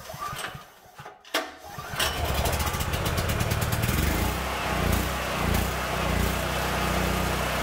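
Predator 9000 portable generator's 459cc single-cylinder engine starting about two seconds in and then running steadily. A couple of light knocks come just before it starts.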